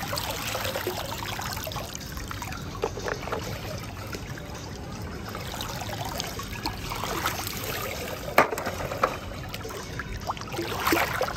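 Water pouring and dripping off plastic toy cars lifted out of a swimming pool, with small splashes and trickles throughout. A sharp knock a little over eight seconds in is the loudest moment.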